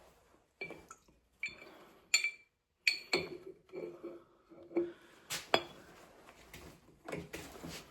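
Sharp clinks and knocks of metal against glass, several at uneven intervals, as a rebuilt master cylinder is pushed by hand over a glass jar to bench-test it.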